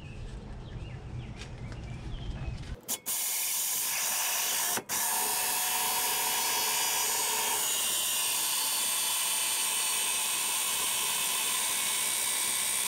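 Cordless drill in reverse spinning a Yardworks reel mower's cutting reel against its bed knife to back-lap the blades with lapping compound: a steady, loud hissing grind. It starts about three seconds in and cuts out for an instant about two seconds later.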